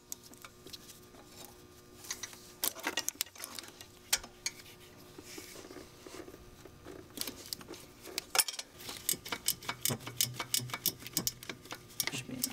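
Ratcheting wrench clicking as an intake manifold bolt is loosened, in scattered clicks at first and then quick runs of ticks in the second half.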